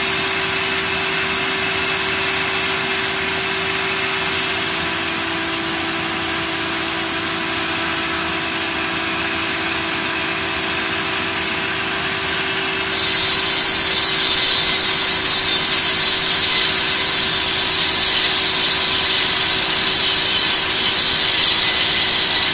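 Multi-blade circular ripping saw running with a steady hum; about halfway through, a sudden louder, high-pitched sawing hiss sets in as the blades cut through a log and keeps going.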